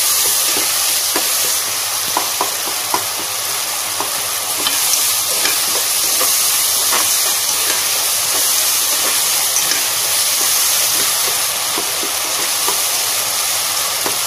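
Tomato, onion and ginger-garlic paste sizzling in oil in a pressure cooker, stirred and scraped with a metal spoon: a steady frying hiss with frequent irregular clicks of the spoon against the pot.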